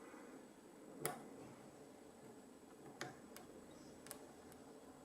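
Faint, sharp clicks of a hook pick working the pin tumblers of a red Master Lock lockout padlock under tension: one clearer click about a second in, then a few lighter ticks.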